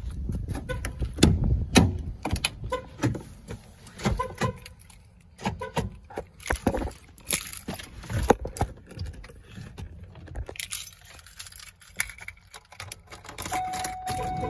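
A bunch of keys jangling, with irregular clicks and knocks of handling throughout.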